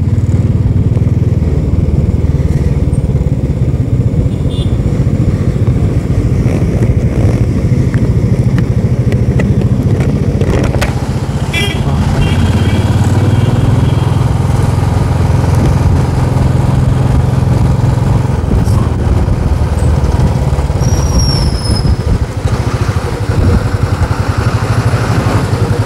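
Motorcycle engine running steadily while riding, with wind and road noise, heard from the rider's seat.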